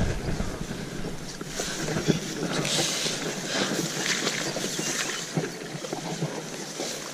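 Close rustling of grass and a fleece sleeve brushing through reeds as a pike is handled and lowered at the water's edge, with a few soft knocks.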